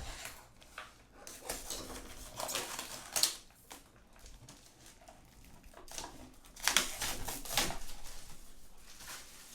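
Wrapping being torn and peeled off a headphone box by hand: irregular crinkling and rustling, busiest from about a second and a half to three seconds in and again around seven seconds.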